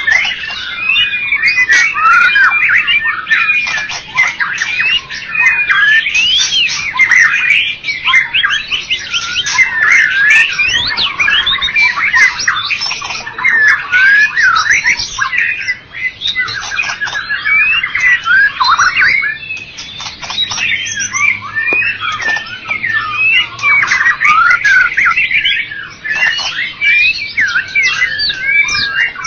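White-rumped shama singing continuously: a fast, varied stream of whistled notes, rising and falling glides and chattering phrases, with a rapid trill about two-thirds of the way through.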